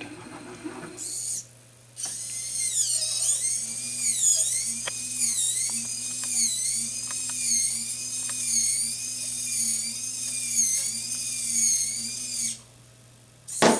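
A small robot's electric gear motors whining, the pitch wobbling up and down about once every 0.6 s, with a few light clicks, over a steady low hum, as it drives to the object and grips it. The whine cuts off suddenly near the end.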